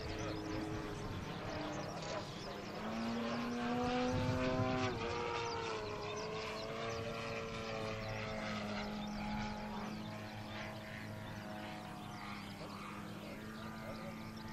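Radio-controlled aerobatic model plane's engine and propeller running in flight. The pitch rises for a couple of seconds, drops sharply about five seconds in as the throttle comes back, then holds steady.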